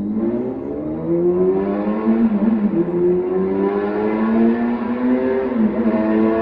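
Honda Jade 250's inline-four engine revving through a 4-2-1 exhaust, giving the high howl the pipe is tuned for. The revs climb over the first two seconds and are held high, dropping back briefly twice.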